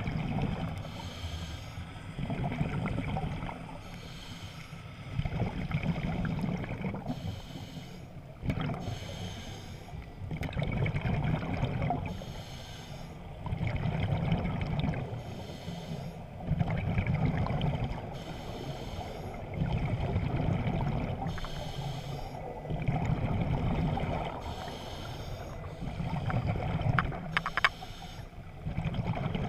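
Scuba diver breathing underwater through a regulator: a hiss on each inhalation alternates with the low rumble of exhaled bubbles, one breath every few seconds. A few sharp clicks come near the end.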